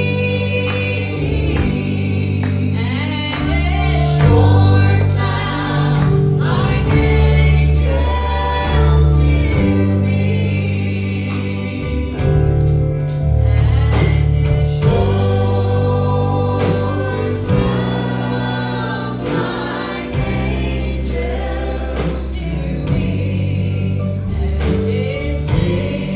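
Gospel song sung by a vocal group in harmony over a band, with a strong bass line and a steady drum beat.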